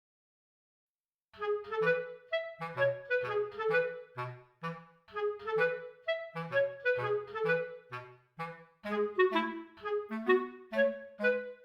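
Background music starts about a second in: a lively tune in short, separated notes over a bass line.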